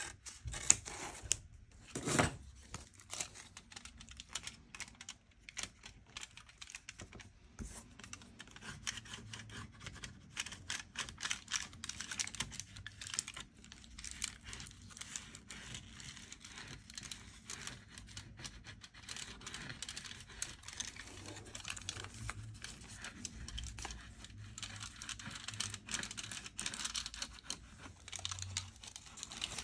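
Close handling noise from hands working at a guitar bench: a steady run of small clicks, scratches and rubbing, with two louder knocks in the first few seconds.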